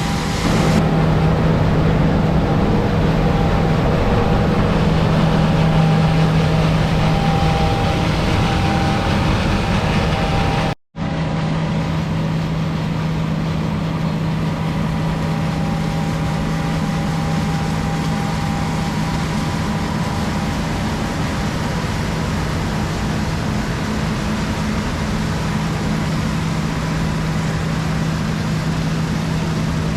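Heavy diesel harvest machinery running steadily at working speed, a constant low drone over a dense rush of mechanical noise. The sound cuts out for a split second about eleven seconds in, then carries on the same.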